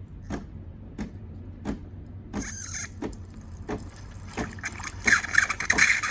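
DeLonghi Magnifica ESAM3300 espresso machine purging hot water through its steam wand: a steady hum with a regular tick about every 0.7 s. A hiss comes in about two seconds in and swells near the end into a loud spitting hiss as the water turns to steam.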